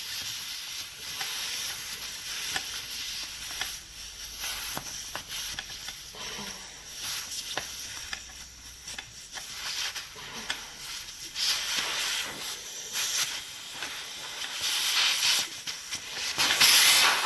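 Air hissing out of an electric scooter tyre's valve stem as the valve core is unscrewed with a core removal tool. The hiss swells and fades and is loudest near the end.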